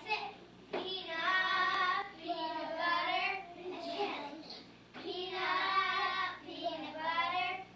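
Young children singing together, two long held phrases with a short break between them.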